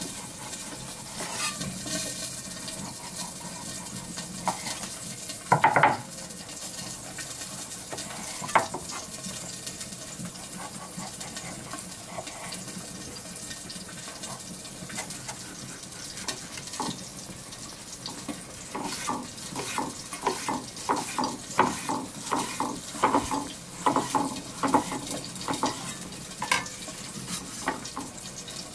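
Knife peeling and slicing an avocado on a wooden cutting board: quiet cuts through the skin, a sharp knock of the blade on the board about six seconds in, and later a quick run of slicing strokes tapping the board, about two to three a second, over a steady background hiss.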